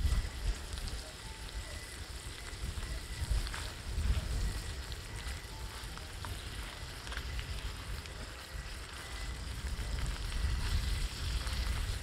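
Shrimp and garlic sizzling and crackling in a cast-iron skillet as a wooden spatula stirs them, over a low steady rumble.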